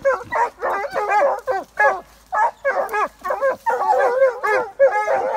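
A pack of Porcelaine hounds giving tongue together, several voices overlapping in quick runs of baying yelps as they work a scent line.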